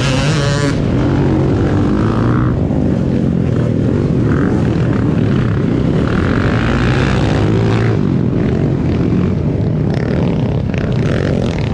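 Enduro motorcycle engine running continuously under way, its pitch rising and falling with the throttle.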